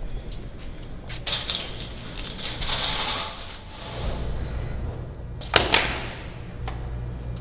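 Clattering with a bright, ringing, metallic quality, then a sharp knock about five and a half seconds in, over a low steady hum.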